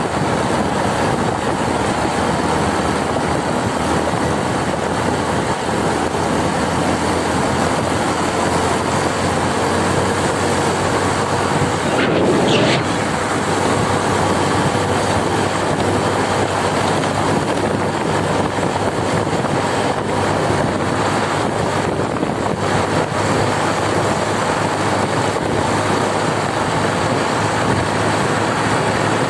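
Motorcycle running steadily at road speed, mixed with wind rushing over the microphone. A brief, slightly louder sound with a short rising tone comes about twelve seconds in.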